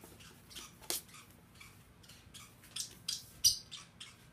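Light handling noises as items are moved about in a cardboard box: short rustles and clicks of packaging, with a sharp knock about a second in and a louder crackle near the end.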